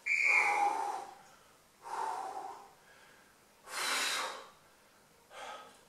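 A man breathing hard from exertion during reverse planks: four forceful breaths, about one every two seconds, the first the loudest.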